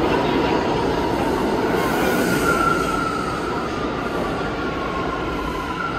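New York City subway train rolling along the platform, a steady noise of wheels and running gear with a thin, steady wheel squeal that comes in about two seconds in.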